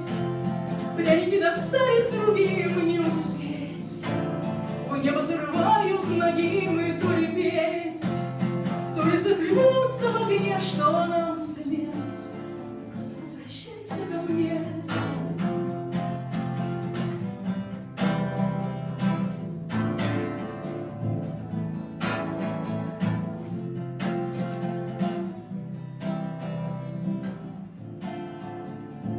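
Acoustic guitar strummed in a steady rhythm, with a woman singing a gliding melody over it for about the first twelve seconds; after that the guitar plays on alone.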